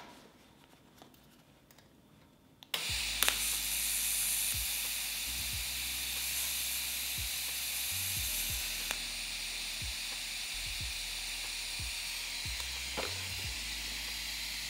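TIG welding arc, DC at 50 amps, striking with a sharp click about three seconds in and then hissing steadily as a tack spot is welded.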